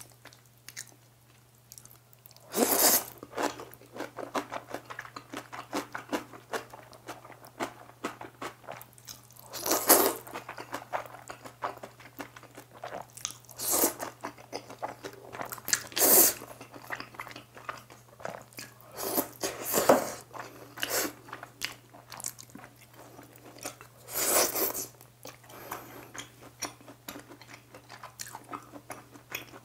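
Close-miked eating of black-bean jjapaghetti noodles and kimchi: wet chewing and crunching, broken about six times by a loud slurp of noodles.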